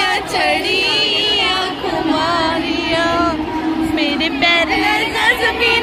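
A group of women singing together, with crowd voices around them.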